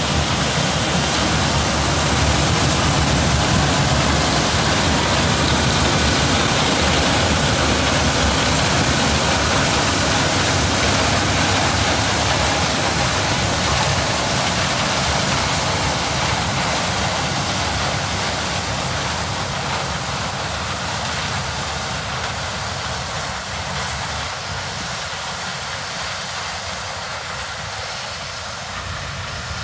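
Claas Lexion 7500 Terra-Trac combine running as it harvests corn with its 12-row chopping corn head, a loud steady mechanical rush of engine, header and threshing. It fades gradually over the second half as the combine moves away.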